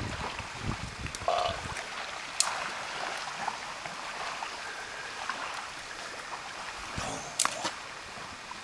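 Steady outdoor background hiss with a few sharp clicks, and low thumps near the start.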